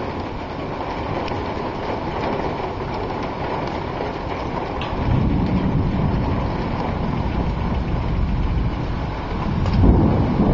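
Thunderstorm: a steady wash of rain and wind, with a low rumble of thunder swelling about halfway through and again near the end.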